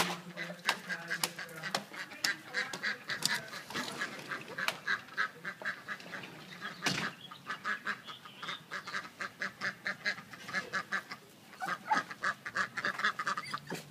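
Ducks quacking in a rapid, continuous run of short calls, with a single knock about halfway through.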